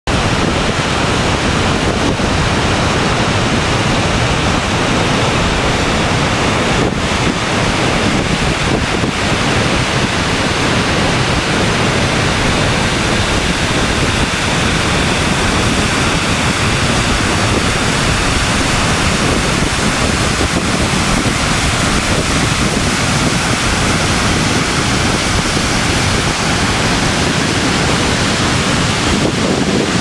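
Glacier-fed Shdugra waterfall pouring down a rock face and crashing onto boulders: a loud, steady rush of falling water.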